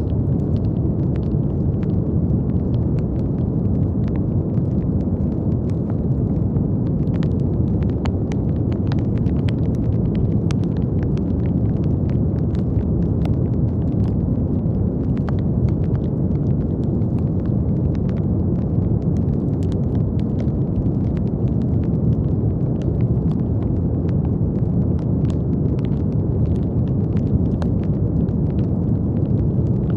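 Steady brown noise: an even, deep hiss weighted heavily toward the low end, with faint scattered clicks and crackles throughout.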